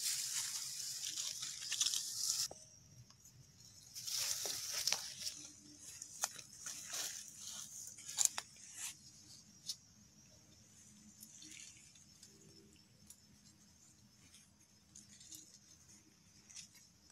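Rustling and crackling in short bursts, with a few sharp clicks, dying down to faint scattered rustles in the second half.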